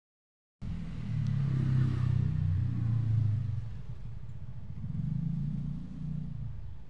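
After a brief silence, the low rumble of a motor vehicle's engine running nearby, strongest for a couple of seconds and swelling again about five seconds in.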